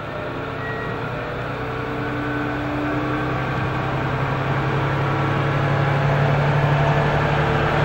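Kaelble-Gmeinder DE 500 diesel-electric shunting locomotive running as it approaches slowly with a train of freight wagons; its steady engine hum grows steadily louder.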